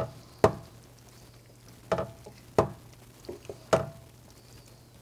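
A cooking utensil clinking against cookware, about seven sharp, irregularly spaced knocks, each with a brief ring, as the stew is stirred or dished up.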